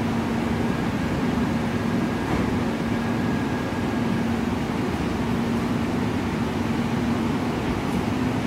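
Steady hum and whir of a Korail commuter electric multiple unit standing at the platform with its onboard equipment running. A faint high tone holds for a few seconds from about a second in.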